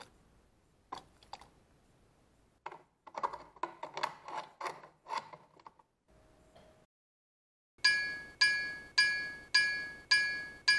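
Light clinks and knocks of metal being handled, then, after a short break, a run of evenly spaced metallic strikes, about two a second, each ringing and dying away; these strikes are the loudest sounds.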